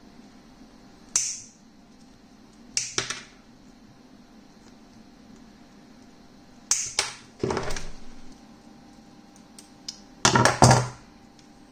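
Several groups of sharp clicks and knocks, as of tools or parts being picked up and set down, over a steady low hum.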